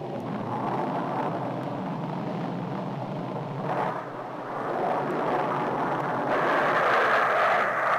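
Jet engine noise from Grumman F11F Tiger fighters flying past: a steady rushing noise that turns louder and higher about six seconds in, as a jet comes toward the listener.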